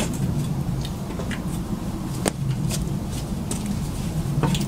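Scattered metal clinks and knocks from the BMW E30 rear subframe and trailing-arm assembly being worked apart by hand, a few sharp taps about a second apart, over a steady low hum.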